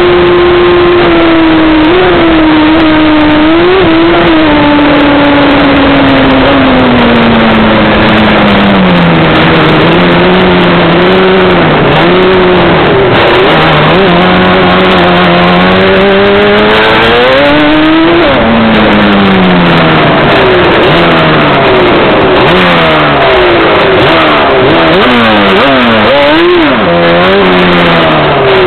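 Stock Yamaha Banshee ATV's twin-cylinder two-stroke engine running hard at speed, over a constant rush of wind noise. The engine pitch sags slowly over the first third and climbs sharply about two-thirds in. After that the revs rise and fall over and over.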